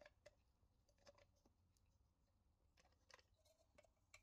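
Faint, scattered clicks and taps from a toy cement mixer's plastic drum and pressed-steel parts being handled and fitted together by hand. The clicks come irregularly, about ten of them, over near silence.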